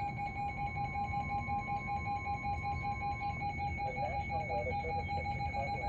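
Weather alert radio sounding its rapid pulsing electronic alarm beep, the signal of an incoming warning broadcast. A fainter steady warning tone sounds underneath and stops about halfway through.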